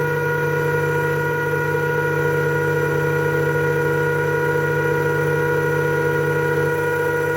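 Milling machine running steadily while its cutter takes a light pass along a lathe tool's shank: an even, unchanging whine of several tones with no breaks.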